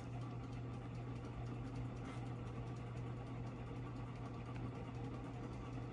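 Evergo hugger ceiling fan running steadily on high speed: a constant low motor hum, with the bearing noise that the owner hears mostly on medium and high.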